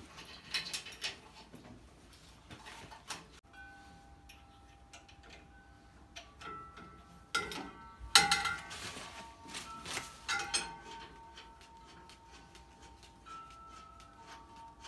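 Metal clinks and knocks with brief ringing, from wrench and bolts on the table saw's motor shipping bracket as it is unbolted; the loudest knocks fall about halfway through and again near ten seconds in.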